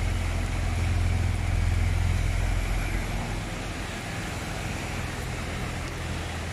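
Road traffic on a waterlogged street: a car engine hum, strong for the first three seconds or so and then fading, over a steady hiss of tyres running through standing water.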